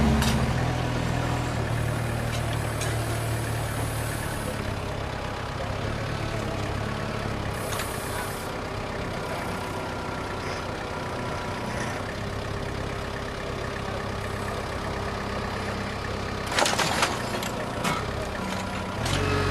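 Diesel engine of heavy road construction machinery running steadily. A louder engine fades about half a second in, and a few sharp clanks come near the end.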